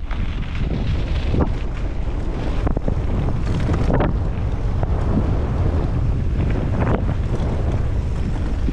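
Wind buffeting a helmet-mounted microphone as a mountain bike rolls fast down a dirt singletrack, with a steady rumble from the tyres on the dirt and scattered clacks and rattles from the bike over bumps. The noise jumps up sharply right at the start as the bike picks up speed.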